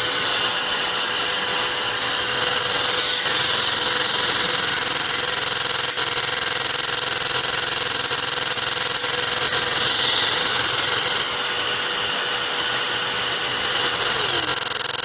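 BLACK+DECKER Dustbuster AdvancedClean 16-volt lithium cordless hand vacuum running at full speed: a loud, steady high motor whine over rushing air, with the air sound shifting a few times. Near the end the motor is switched off and winds down, its whine falling.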